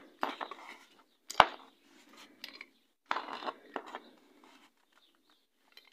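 Small bench vise being screwed tight by its handle: short rattling and scraping handling noises, with one sharp metal click about a second and a half in.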